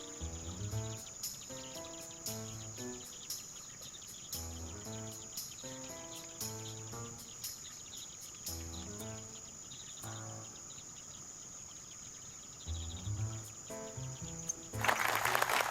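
Steady high-pitched insect chorus over background music with repeating low notes. Near the end a loud rushing noise lasts about a second.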